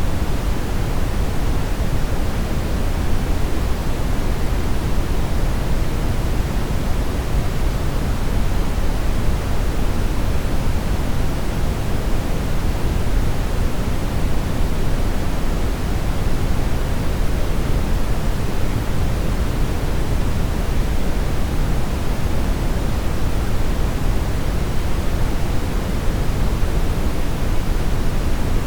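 Television static: a steady, loud hiss of noise with no tones or breaks.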